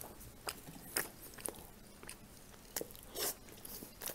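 A man chewing a mouthful of bread close to the microphone: a run of separate sharp, wet mouth clicks and smacks, several about half a second apart, with a slightly longer smacking sound near the three-second mark.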